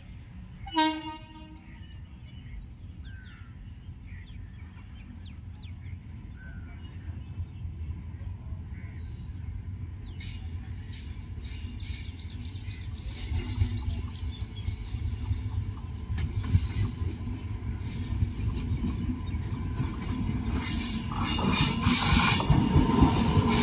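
An electric locomotive hauling a passenger express approaches along the track: a short horn blast about a second in, then the rumble and clatter of its wheels on the rails, growing steadily louder as the train comes close.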